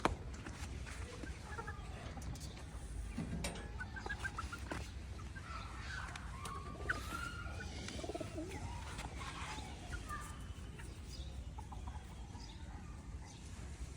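Birds chirping and calling in short scattered notes over a steady low rumble.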